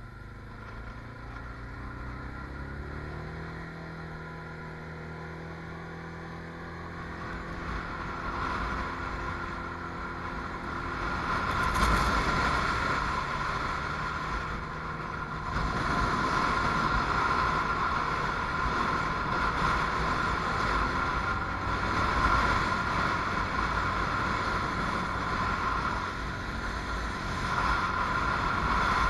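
Can-Am Outlander Max ATV engine pulling away, its note rising over the first several seconds, then running hard at speed across sand, with a louder rushing noise over it from about twelve seconds in.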